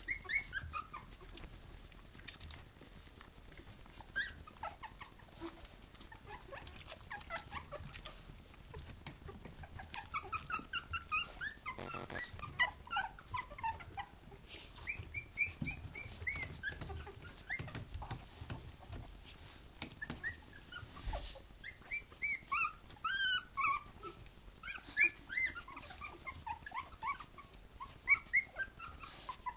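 Three-week-old Tibetan terrier puppies squeaking and whimpering as they jostle to nurse from their mother: many short high-pitched cries that slide up and down, busiest in the second half.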